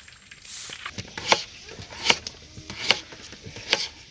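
Knife chopping on a cutting board: four sharp, evenly spaced strikes, about one every 0.8 seconds.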